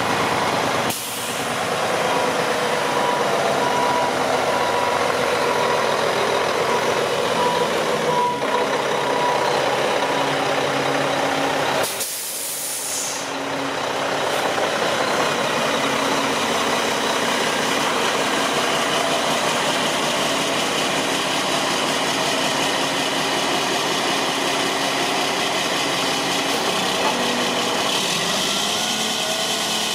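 Heavy diesel truck engine idling steadily. A backup alarm beeps in a steady on-off pattern for about the first ten seconds, and about twelve seconds in there is a short, sharp burst of air hiss.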